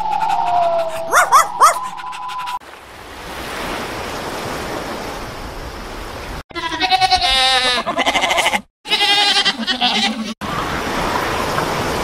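A run of short animal-sound clips with hard cuts between them: a steady whistling tone with short chirps, a stretch of hiss, then quavering bleats about halfway through, broken by a short gap, followed by more hiss.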